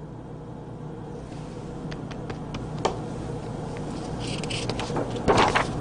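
Paper chart sheets being handled and laid flat: light taps and rustles, with a louder rustle about five seconds in, over a steady low hum.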